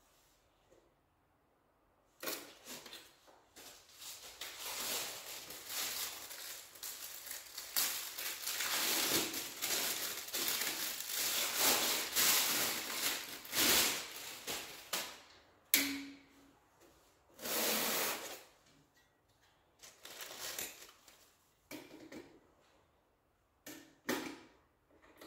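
Rustling and scraping handling noise that starts about two seconds in and runs for roughly thirteen seconds. It is followed by several short separate scrapes and knocks near the end.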